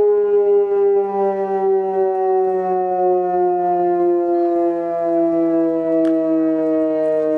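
SES600 Compact electronic civil-defence siren sounding the German 'Warnung der Bevölkerung' alarm: one loud, steady wail whose pitch slides slowly and evenly downward.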